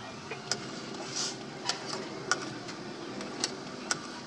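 Sugar syrup boiling in a wok over an LPG gas burner: sharp, irregular pops of bursting bubbles every second or so over a steady low rush.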